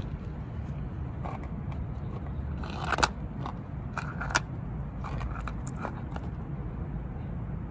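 Scattered clicks and scrapes of close handling by a hand at the phone, with two sharper knocks about three seconds in and again about four and a half seconds in, over a steady low background rumble.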